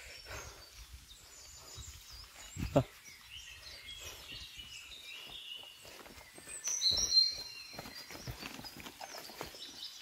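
Birds chirping in the forest, with footsteps and rustling through undergrowth on a trail. A single thump comes a little under three seconds in, and a louder cluster of high calls comes about seven seconds in.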